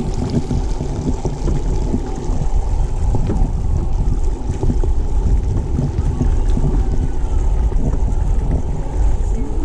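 Wind buffeting a camera microphone: a steady low rumble with very little above it.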